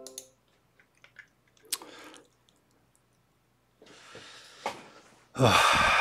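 Hand trigger spray bottle misting water onto a canvas: a trigger click and a short hissing squirt about two seconds in, a longer softer hiss about four seconds in, and a loud hiss near the end.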